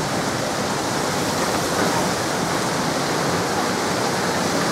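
Steady rush of falling and splashing water from water-park features such as slides and fountains.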